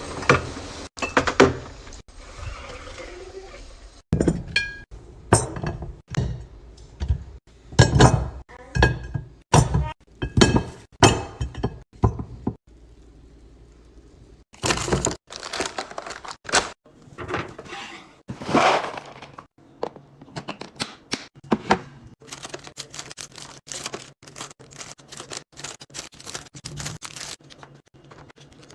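Many separate knocks, clacks and clinks of food containers, jars and packages being picked up and set down on shelves and counters as a fridge is restocked and organized, coming in irregular runs with abrupt breaks between them.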